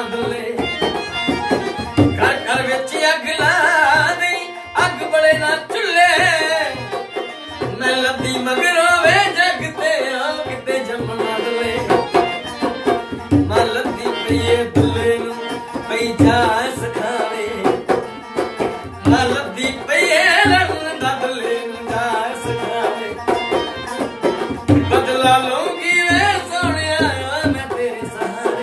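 Punjabi folk music: a hand-played dholak beats a steady rhythm under a harmonium and a plucked tumbi, with sung phrases that wave up and down returning every few seconds.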